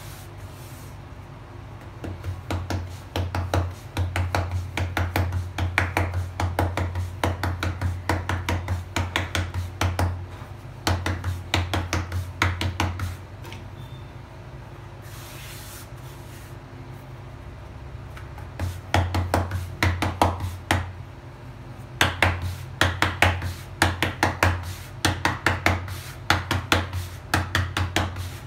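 Hands patting a ball of jowar (sorghum) dough flat into a thin round bhakri on a floured counter. Quick slaps of the palm come several a second, in runs broken by short pauses.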